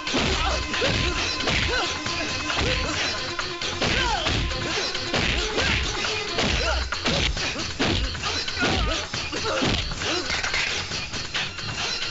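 Film fight soundtrack: repeated punch and crash impact effects, thumps and smashes coming thick and fast, over background music.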